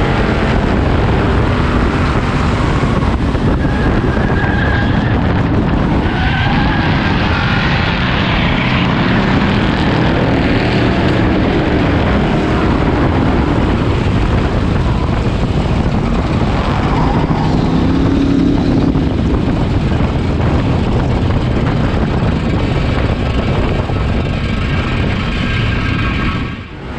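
Stock car engines running hard at racing speed, heard on board, with other cars close alongside. The sound is steady, with engine pitch rising and falling through the corners, and drops briefly near the end.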